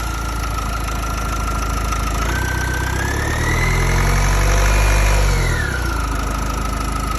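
Renault M9R 2.0 dCi four-cylinder diesel engine running, revved up for about three seconds and then dropping back to idle. A high whine runs over the engine and rises and falls in pitch with the revs. This whine is the weird engine noise the owner is asking about.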